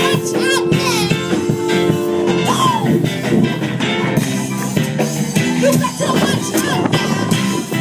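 Music: a song with guitar and drums, with many quick percussive hits under held notes.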